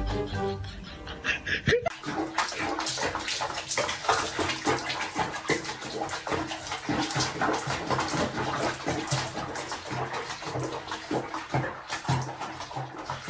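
Water splashing in a bathtub with a cat sitting in it, a dense irregular crackle of small splashes that starts about two seconds in. Background music plays underneath.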